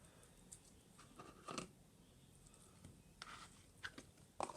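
Faint, scattered squishes and crackles of bead-filled slime being handled, a few short ones spread through otherwise near silence, with a louder one near the end.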